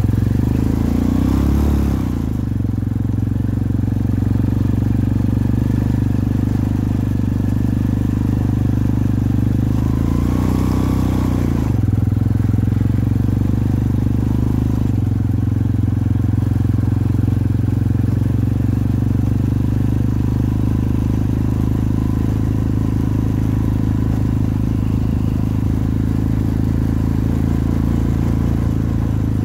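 250cc Jinling ATV's single-cylinder engine running steadily under way. Its pitch dips and rises briefly twice, about two seconds in and again about ten seconds in.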